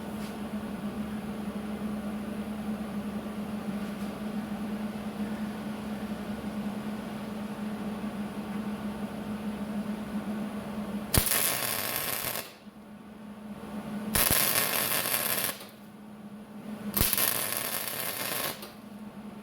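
Three short bursts of MIG welding, each about a second and a half of arc noise that starts with a sharp snap, a few seconds apart in the second half: tack welds laid without shielding gas. A steady low hum runs underneath before them.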